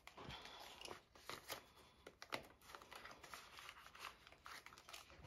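Faint rustling and crinkling of paper banknotes being handled and slid into a clear plastic binder pocket, with light scattered clicks.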